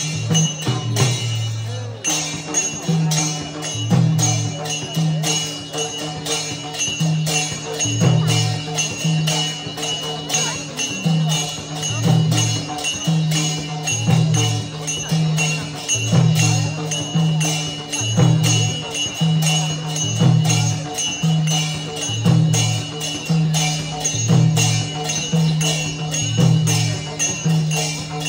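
Live traditional Newari dance music: drums beat a low pattern that repeats about every two seconds under fast, steady strokes of small cymbals.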